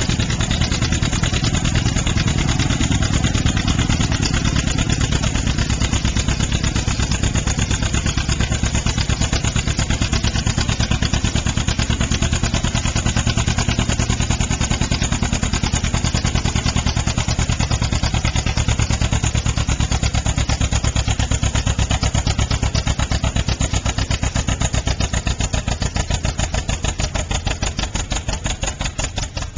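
Antique John Deere two-cylinder tractor engine pulling a weight-transfer sled under heavy load, its exhaust popping in a fast, even beat. Near the end the beats spread out and the sound fades.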